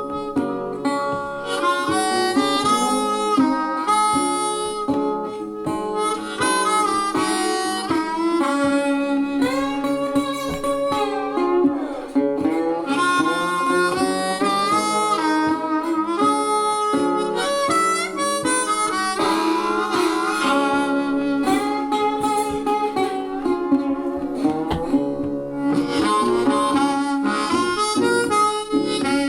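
Instrumental music: a lead melody that bends and slides in pitch over a steady accompaniment.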